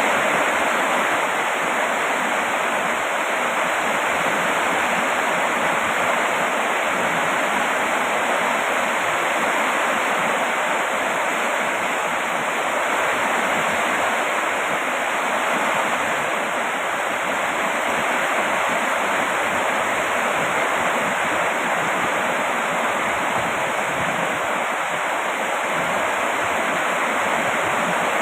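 Steady heavy rain: an even, unbroken hiss with no single drops standing out.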